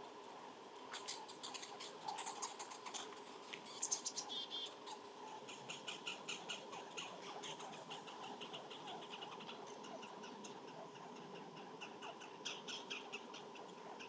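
Small birds or critters feeding close to the microphone: quick, irregular clicks and taps of pecking and nibbling, with a denser run about five to nine seconds in.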